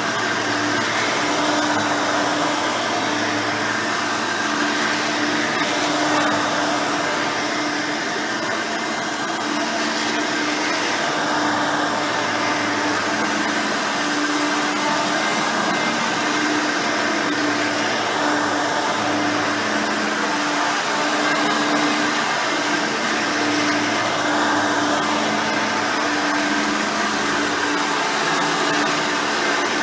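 Hoover Elite 5.0 upright vacuum running steadily while vacuuming, its rebuilt original 5-amp motor and replacement 7-blade fan giving a steady hum that wavers every second or two.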